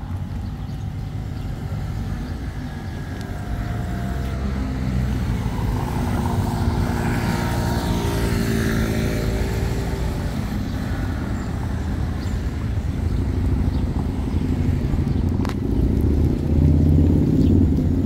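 Road traffic: a car passes with its engine running, loudest about halfway through, and another vehicle comes close near the end.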